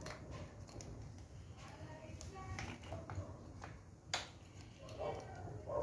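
Scattered light clicks and taps of small parts being handled, with one sharper click about four seconds in.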